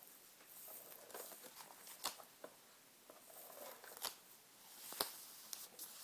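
Handheld adhesive tape gun rolling double-sided tape onto the back of a cardstock cutout: a faint rasping as the tape peels off onto the paper, with about three sharp clicks partway through.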